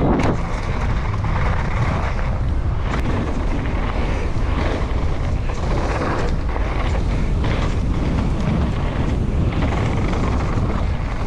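Mountain bike being ridden on a trail: steady rumble of wind on the microphone mixed with tyres rolling over the ground, with scattered small knocks and rattles.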